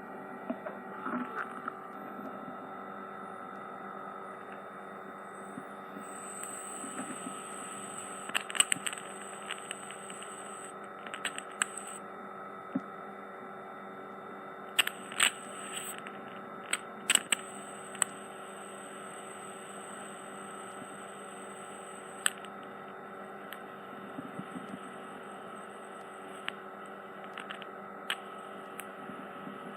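Steady electrical hum from the ear-cleaning equipment. Over it come scattered sharp clicks and crackles, most of them in the first half, from instruments working in the ear canal to clear dead skin and wax.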